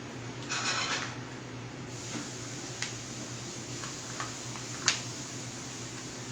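Steady fan hum, with a short rustle about half a second in and a few sharp clicks, the loudest about five seconds in.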